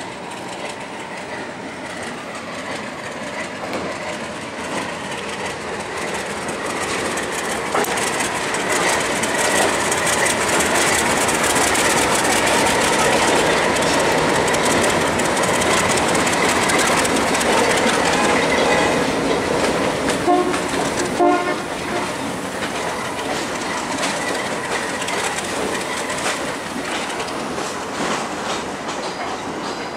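A pair of ALCO RS3 diesel locomotives, each with a turbocharged V12 ALCO 244 engine, working a passenger train past. The engine noise swells as they come close and pass, with wheels clicking over rail joints, then eases as the train moves away. Two short horn toots come about twenty seconds in.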